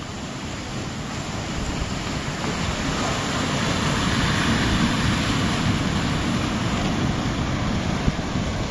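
Sea surf breaking and washing over a rocky shoreline, building to its loudest about halfway through and then staying loud.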